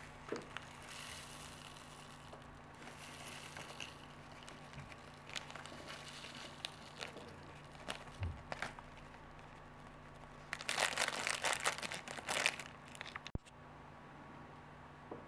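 Clear plastic bag crinkling and rustling as granular potting mix is shaken out of it, with scattered light taps and clicks. The loudest crinkling comes in a burst of about two seconds, about two-thirds of the way through.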